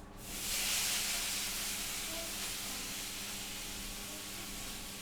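A steady hiss that comes on suddenly about a third of a second in, is loudest just after, then eases off slightly and keeps going.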